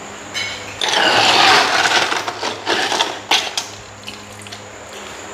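Ice cubes rattling and clinking into a glass: about a second of clattering, then a handful of separate clinks.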